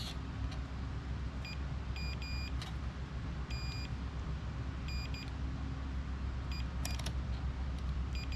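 Digital multimeter's continuity beeper giving a handful of short, uneven beeps of one high pitch, some broken off, as the test probe is touched from pin to pin on a pinball trough circuit board. The uneven beeps mark a connection that is acting a little suspect, which is taken for a weak solder joint. A steady low hum runs underneath.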